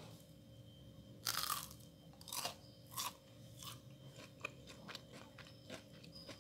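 Crunching and chewing of crispy fried food: a few sharp crunches, the loudest about a second in, then softer ones at irregular intervals, over a faint steady hum.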